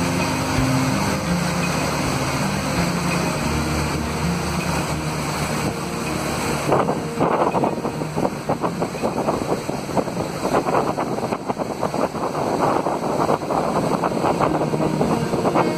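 A motorboat running along the river, with wind buffeting the microphone. About seven seconds in, the wind noise turns to loud, irregular crackling gusts.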